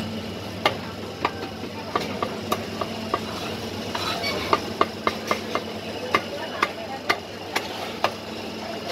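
Irregular sharp clinks and knocks of kitchen utensils and crockery, about one to three a second, over a steady background hum.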